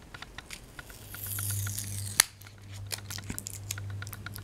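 Small clicks and rustles of hands opening a small cardboard box and handling a pair of metal tweezers, with one sharp click about two seconds in. A low steady hum sits underneath from about a second in.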